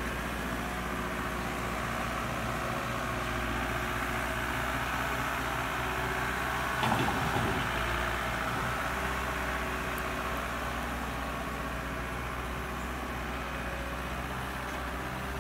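Case SR200 skid steer loader's diesel engine running steadily as it works a pile of wood chips, with a brief knock about halfway through.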